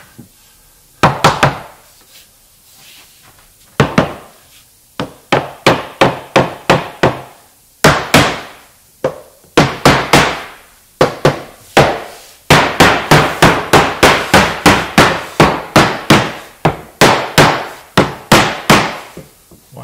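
Rubber mallet striking a rift-cut white oak face board, driving it down onto a glued box beam mantel to seat its tight mitre and rabbet joints. A few scattered blows at first, then from about halfway a steady run of strikes, about three a second.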